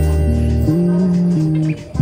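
Background music with a steady bass and held melody notes that shift pitch a few times.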